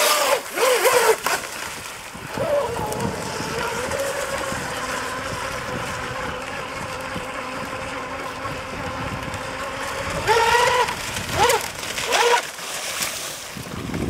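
Battery-electric RC speedboat running flat out across the water, its motor giving a steady high whine. The whine swings up and down in pitch near the start and again about ten seconds in, over the hiss of spray and wind.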